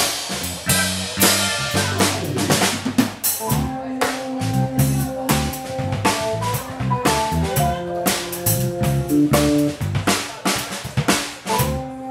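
Live instrumental jazz-funk trio: a drum kit playing a busy groove of snare, bass drum and cymbals, an electric bass guitar playing low notes, and an electric organ holding chords that come in more steadily about three and a half seconds in.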